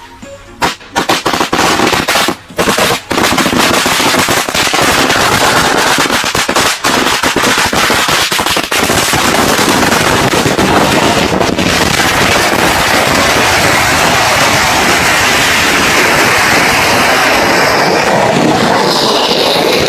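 Firecrackers going off: a few separate sharp bangs at first, then from about three seconds in a dense, continuous rapid crackle with no break.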